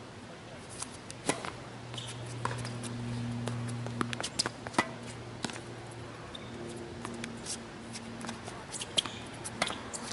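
Tennis ball play on a hard court: a series of sharp pops from the racket striking the ball and the ball bouncing, irregularly spaced, with scuffs of shoes. A steady low hum runs underneath.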